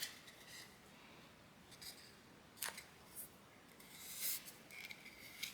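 Faint handling sounds of a cardstock cutout being lined up and pressed onto a wood egg freshly coated with Mod Podge: soft paper rustles, with one sharp little tap about halfway through.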